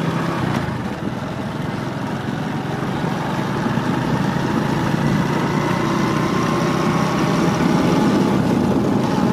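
Motor vehicle engine running steadily, with a low hum and road noise.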